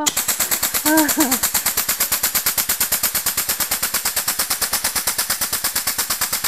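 Air-powered grease gun pumping in rapid, even strokes, about eight a second, forcing grease into a VW bus rear wheel-bearing housing to pack the new bearing.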